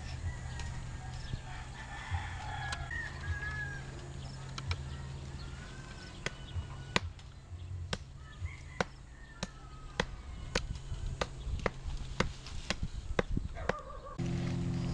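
Rooster crowing and chickens clucking over a steady low hum. Sharp regular ticks come in about halfway through, nearly two a second. A louder, steadier machine-like hum starts just before the end.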